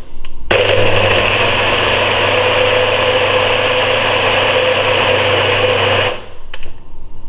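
NutriBullet blender running, blending a smoothie of bananas, milk, ice and protein powder. It starts about half a second in, runs steadily for nearly six seconds and cuts off suddenly, followed by a couple of light clicks.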